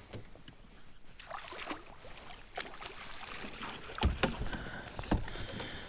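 Handling noise on a fishing kayak while a hooked bass is played on a bent rod: low rustle and light knocks of rod and gear against the deck, with a couple of sharper knocks about four and five seconds in.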